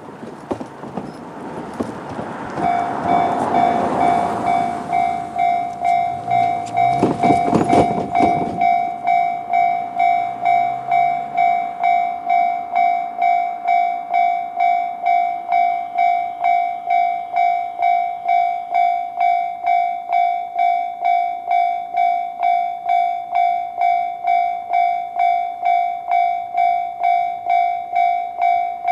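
A Japanese railway level-crossing alarm sounds its JR standard electronic tone. It starts about two and a half seconds in and rings in even, rapid pulses throughout. For the first eight seconds a loud rush of noise with clattering strokes runs under it, then stops suddenly.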